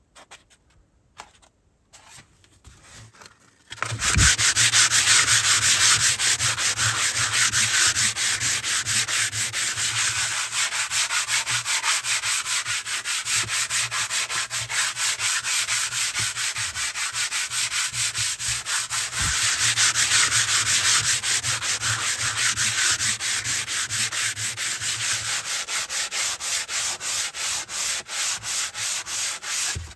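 Hand sanding of wooden plank stair treads with a sheet of abrasive paper. Quick, even back-and-forth rubbing strokes start about four seconds in and keep a steady rhythm until they stop abruptly.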